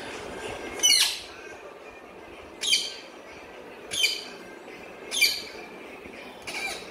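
Rose-ringed parakeet giving short, shrill calls: four loud ones about a second or so apart, then a fainter fifth near the end.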